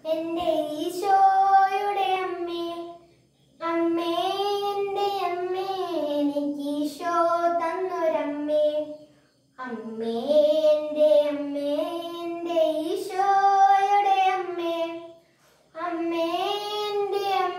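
A boy singing a Malayalam Marian hymn solo and unaccompanied, in long held phrases broken by three short pauses for breath.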